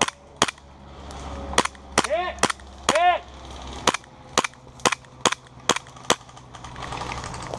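Airsoft gun firing single shots: about a dozen sharp pops, roughly two a second, with a short pause after the first two.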